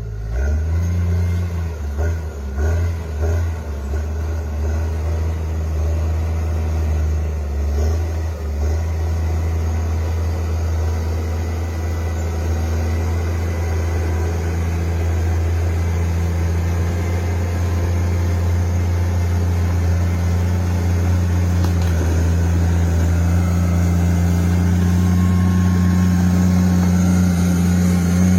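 Bulldozer's diesel engine running, with an uneven, changing note for the first several seconds, then holding steady and slowly growing louder.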